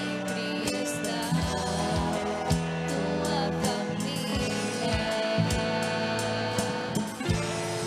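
Live worship band playing a song with a steady beat, strummed guitar and keyboard, and some singing.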